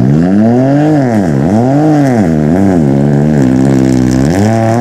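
Ford Fiesta rally car's engine at full racing revs on a gravel stage. The revs climb and fall back sharply about three times, hold high for a second or so, and drop near the end.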